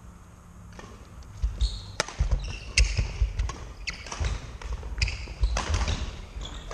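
Badminton rally on a wooden sports-hall court: sharp racket hits on the shuttlecock, shoe squeaks and footfalls on the floor, starting about a second in and coming thick and fast.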